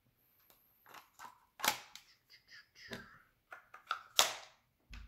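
Parts of an HK MP5 22 pistol clicking and knocking together as it is being reassembled: a string of sharp, uneven clicks, the loudest about four seconds in.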